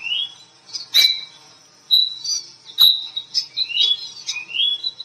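Quail calling: a series of short, high chirps, several of them rising in pitch, broken by sharp single call notes every second or two.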